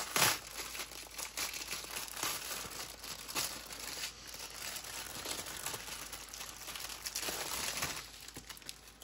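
Clear plastic wrapping crinkling and crackling as it is pulled and slid off a rolled canvas. The loudest crackle comes right at the start, and it thins out near the end.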